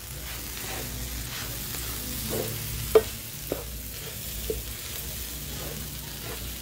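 A spoon stirring a pot of gumbo on a hot plate, with a steady sizzle of the food cooking and a few short knocks of the spoon against the pot, the sharpest about three seconds in.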